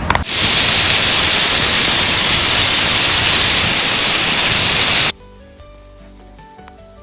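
A very loud, even hiss like static or white noise starts just after the start and cuts off abruptly about five seconds in, leaving faint background music.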